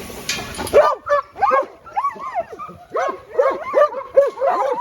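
Several dogs barking and yipping in rapid, overlapping short barks. Under a second in, the hiss of a pressure-washer spray cuts off.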